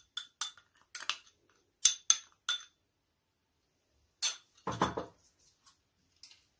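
Metal spoon scraping and clinking against a small ceramic bowl as marinade is scraped out: a run of sharp clinks over the first two and a half seconds. After a pause, one more clack and a brief dull thud about four and a half seconds in.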